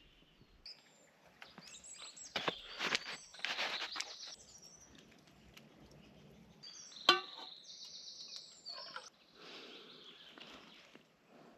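Forest birds singing, with scattered close handling noises that are loudest about two to four seconds in, and one sharp click about seven seconds in.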